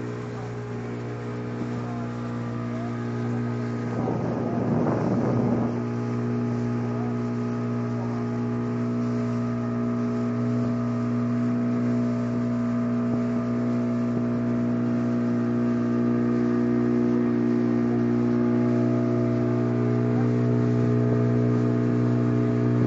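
Speedboat engine running steadily at cruising speed, a constant drone that grows a little louder over the stretch. A brief rush of noise about four seconds in, lasting a couple of seconds, sits over it.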